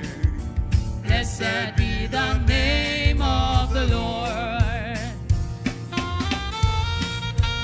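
Gospel hymn music: a solo voice sings with strong vibrato and runs over a band with bass and drums. About five seconds in the voice drops out and an instrument plays steady held notes.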